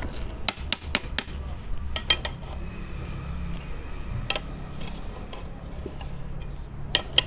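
Metal tools clinking against the ball-joint end of an Eicher 11.12 truck's tie rod during its rebuild: a quick run of sharp, ringing clinks in the first second or so, a few more around two and four seconds, and two near the end, over a low steady hum.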